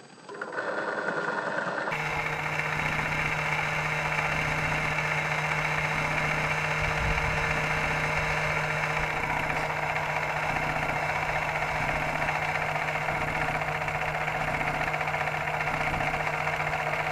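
Small electric mini drill with a sub-millimetre bit running at a steady speed, drilling holes for the display's pins in a car-alarm key fob's circuit board. It comes in about half a second in and runs at full level from about two seconds in.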